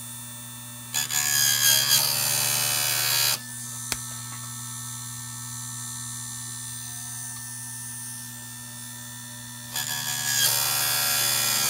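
Electric bench-mounted chainsaw sharpener's motor running with a steady hum. Twice, about a second in and again near the end, its grinding wheel is pulled down onto a saw-chain tooth and grinds for about two seconds, louder and harsher than the hum. There is a single click in between.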